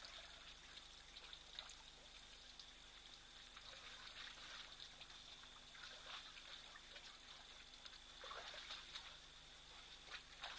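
Faint trickling and splashing of water as elephants drink at a waterhole, with scattered soft splashes over a steady faint high-pitched tone.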